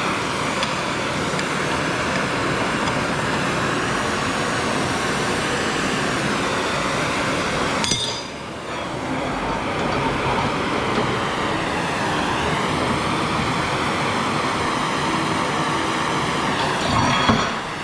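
Gas heating torch flame running with a steady rushing noise while it heats a piece of scrap steel to soften it for bending. The noise drops briefly about halfway through and again near the end, with a faint metallic clink.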